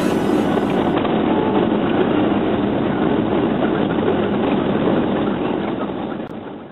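Ford F250 Powerstroke diesel pickup running while it plows snow, heard from inside the cab as a steady noise with no clear engine pitch. It fades out near the end.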